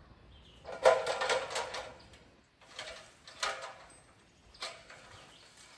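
Metal ladder clanking and scraping against the tree. A long, ringing rattle-scrape comes about a second in, followed by three shorter knocks.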